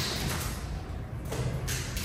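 Hands working at the taped top of a cardboard box, with a brief rustle of cardboard about a second and a half in, over a low steady background.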